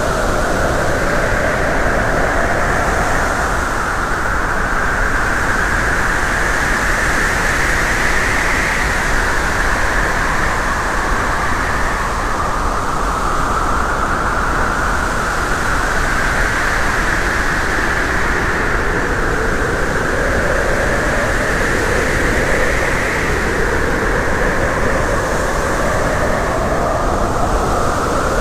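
Loud, steady rushing noise of a moving vehicle, with two hazy tones that drift slowly up and down in pitch over several seconds.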